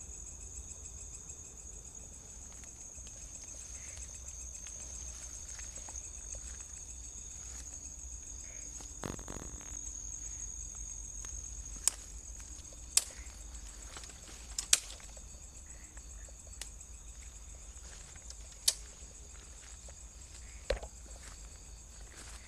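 Insects chirring steadily in one high, even tone, with a handful of sharp clicks from about twelve seconds in.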